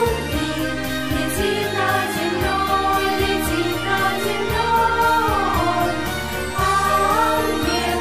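Girls' choir singing a song together, over an instrumental accompaniment with a steady bass line.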